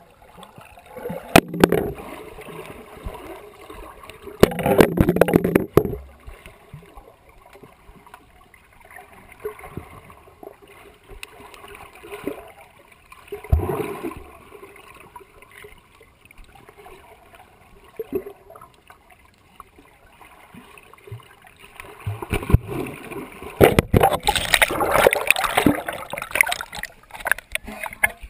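Pool water heard through an underwater GoPro housing: muffled gurgling and bubbling, broken by bursts of splashing and knocks as a child swims down and handles the camera. The loudest splashing comes near the end, as the camera is lifted out of the water.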